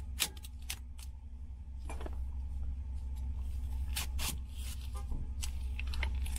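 Kitchen knife peeling and cutting an onion on a cutting board: scattered sharp taps of the blade on the board and crackles of papery onion skin being pulled away, over a steady low hum.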